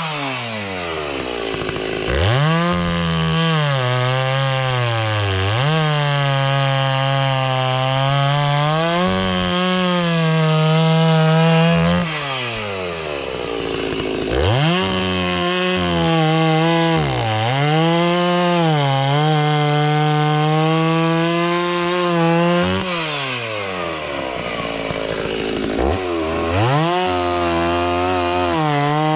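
Stihl chainsaw at full throttle cutting firewood, its engine pitch sagging and recovering as the chain bites into the log. Three times it drops back toward idle and then revs sharply up again for the next cut.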